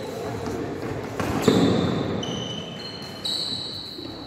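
A badminton rally on a wooden court: sharp racket hits and footfalls, the loudest about a second and a half in. Several high squeaks from court shoes on the floor follow.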